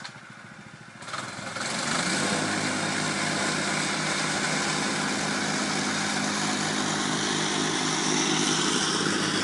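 A small engine starts up about a second in, comes up to speed, and then runs steadily.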